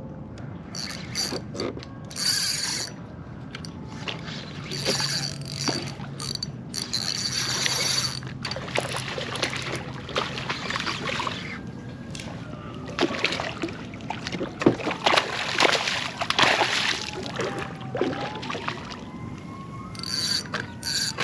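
Fishing reel cranked and its clicking drag ratcheting in spells while a hard-fighting sheepshead is played on the line. A dense run of sharp knocks and splashes comes midway.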